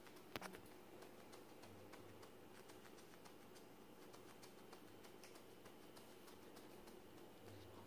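Near silence: room tone with a faint hum, and a single soft click about half a second in.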